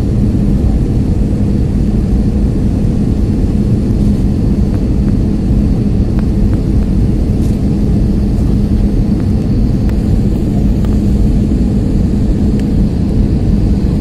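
Steady cabin noise of a passenger aircraft in flight: a loud, even rush of engine and air noise with a constant low hum.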